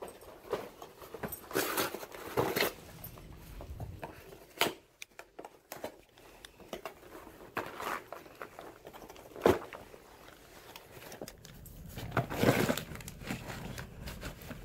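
Alaskan malamute tearing into a cardboard box with its teeth: irregular bouts of cardboard ripping and crinkling tissue paper, with one sharp knock about halfway through.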